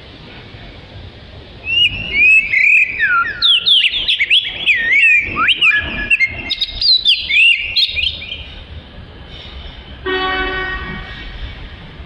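Oriental magpie-robin singing a loud, rapid run of varied sliding whistled phrases for about six seconds. About ten seconds in comes a separate steady tone lasting about a second.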